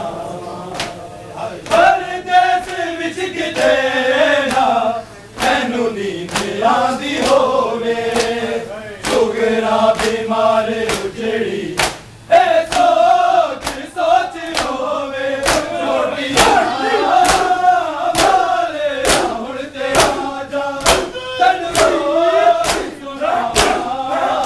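A crowd of men chanting an Urdu noha (Shia mourning lament) together, with sharp, regular slaps of hands beating on bare chests in matam, about two strikes a second.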